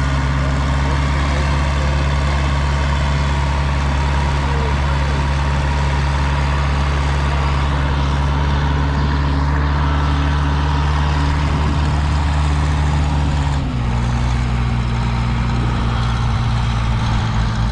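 Caterpillar wheel loader's diesel engine running steadily as the loader pushes a trailer across sand. About 14 seconds in, the engine drops to a lower speed.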